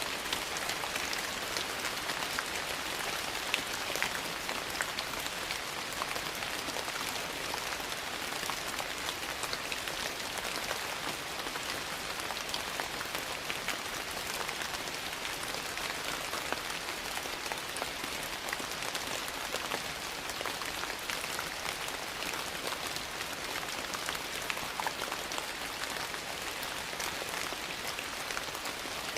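Steady, even rain, with scattered small sharp ticks throughout.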